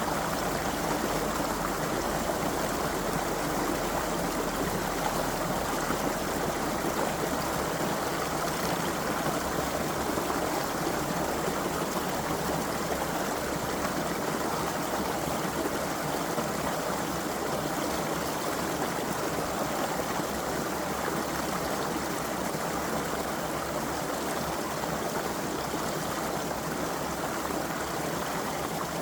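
Creek water flowing steadily, an even, unbroken rush of water.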